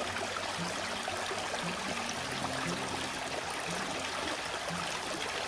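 Steady rush of a small river's flowing water, with a faint low note repeating about once a second.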